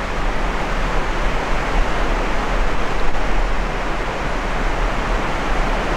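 Steady outdoor rushing noise with a constant low rumble underneath, even and without breaks, and no gunshot.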